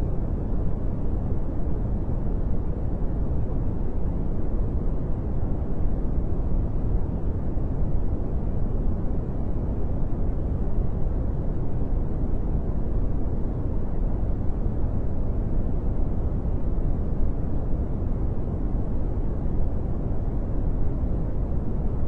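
Steady brown noise: a deep, even rush of noise with most of its weight in the bass and little in the treble, unchanging throughout.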